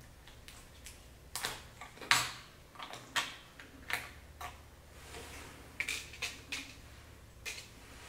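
A run of about ten sharp small clicks and taps as the memory modules of a Dell XPS 15 9530 laptop are unlatched and pulled from their slots, the loudest about two seconds in.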